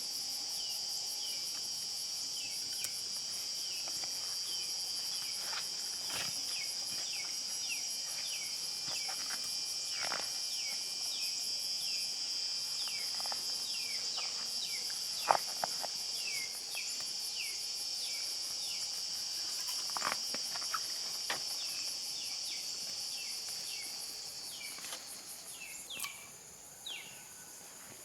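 Dense insect chorus: a steady, high, pulsing buzz with short falling chirps repeating about once a second, and a few sharp clicks, the loudest about halfway through. The buzzing fades away near the end.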